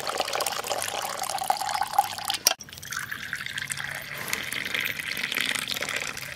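Hot chai being poured in a steady stream of liquid, breaking off briefly about two and a half seconds in.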